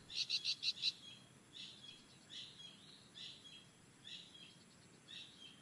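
Faint high chirping animal calls: a quick run of about eight chirps in the first second, then single chirps roughly once a second.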